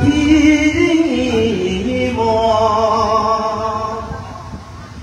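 Voices singing a slow song with long held notes that change pitch in steps, fading out near the end.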